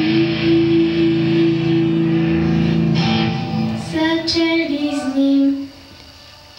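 A young girl singing into a microphone over instrumental accompaniment: one long held note, then a few shorter notes, before the music breaks off about five and a half seconds in.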